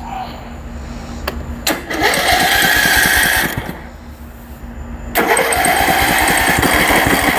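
A riding mower's electric starter cranking the engine in two tries of about two seconds each, a sign that the 4-post solenoid now works with its ground post jumpered to the battery negative.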